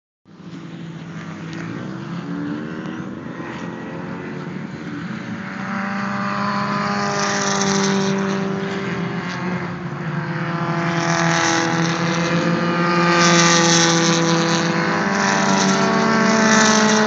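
Several vintage open-wheel race cars running hard on the circuit at once, their engine pitches rising and falling as they change speed. The sound grows louder about halfway through.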